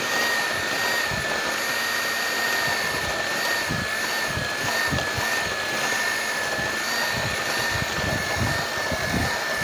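Electric hand mixer running steadily, its beaters churning flour into cake batter in a bowl: a constant high motor whine over irregular low thuds from the beaters in the mix.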